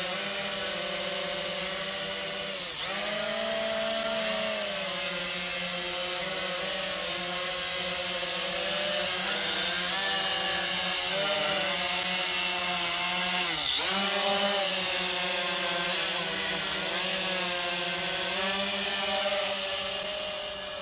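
Small quadcopter drone's electric motors and propellers whining steadily as it hovers close by, the pitch wavering as the motors adjust. Twice, about three seconds in and again about fourteen seconds in, the pitch dips sharply and recovers; the sound fades near the end as the drone moves away.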